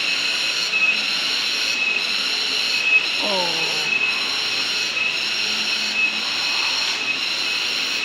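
Chorus of cicadas: a steady high-pitched drone that pulses about once a second, over a faint hiss.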